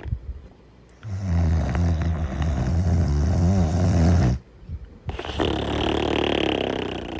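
A cartoon character snoring in its sleep: a long, low snore lasting about three seconds, then after a short pause a higher, breathier one.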